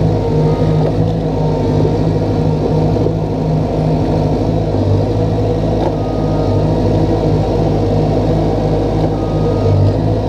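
Crawler dozer's diesel engine running steadily, heard from the operator's seat, with a few brief faint high tones over it.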